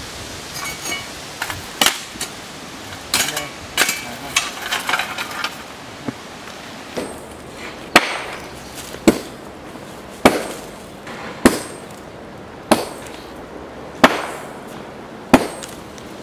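Scattered metallic clinks, then a steady run of hard hammer blows on steel, about one every 1.2 seconds, each with a short ringing tail, during work on a freshly thermite-welded rail.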